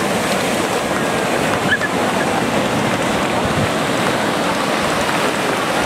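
Ocean surf breaking and washing up the beach, a steady rush of water.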